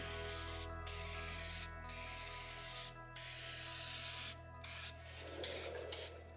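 Spray painting: a run of hissing spray bursts, about six, each a second or so long with brief pauses between them, the last ones shorter.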